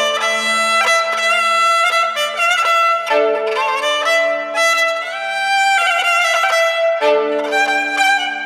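Background music: a melody of long held notes over low chords that change every few seconds.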